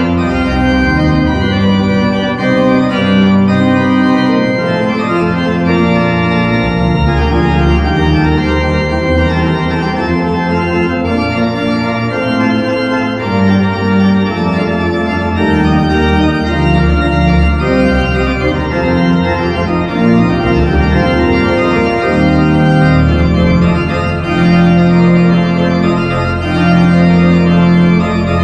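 Church pipe organ playing held chords over a moving bass line.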